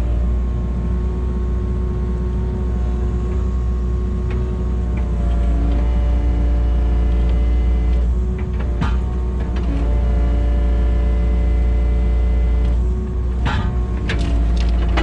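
Kubota KX080 excavator running under load: a steady low diesel drone with a hydraulic whine that shifts pitch several times as the controls are worked. A few knocks and clanks come about nine seconds in and again near the end.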